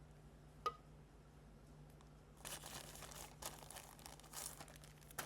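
Packaging crinkling and rustling in a series of short bursts for about two seconds, after a single sharp click near the start. A faint steady hum runs underneath.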